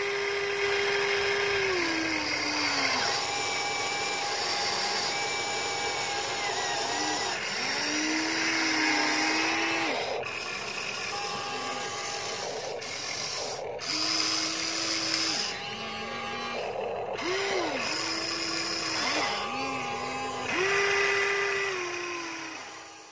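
Huina RC hydraulic excavator's electric motors and pump whining as it digs soil, starting and stopping in repeated stretches, the pitch sagging as each movement eases off. The sound fades out near the end.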